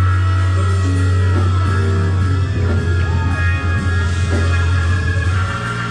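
Loud church band music: chords held over a heavy steady bass, with voices crying out over it.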